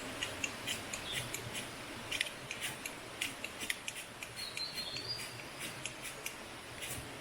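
Irregular run of sharp, light clicks and ticks, with one brief rising chirp a little past the middle, over a steady hiss.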